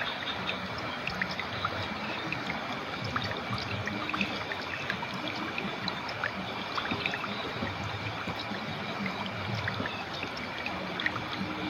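Clear river water flowing and trickling over stones: a steady wash with many small, scattered plinks and splashes.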